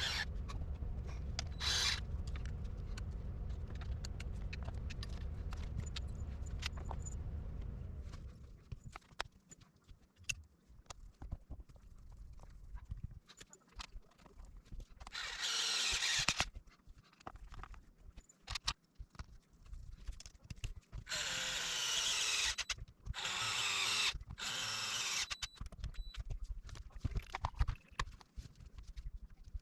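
Small tools and parts being handled during reassembly of an RC car's gear transmission: scattered clicks and taps, with four short noisy bursts about halfway through and again near the end. A low steady hum runs under the first several seconds.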